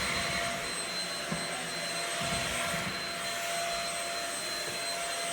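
Shark vacuum cleaner running steadily: a rush of air with a constant high motor whine over it.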